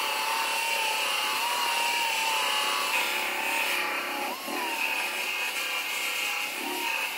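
Narrow belt file sander grinding down aluminum weld beads on a truck cab corner. It runs as a steady whine that wavers in pitch as the belt bears on the metal, dipping briefly about four seconds in.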